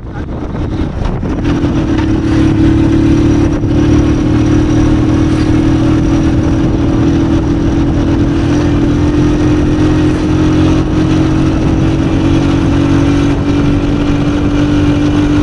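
Single-cylinder engine of a 100cc motorcycle running steadily at cruising speed, heard from the rider's seat with wind rushing past. The sound builds over the first couple of seconds, then holds an even pitch that sags only slightly.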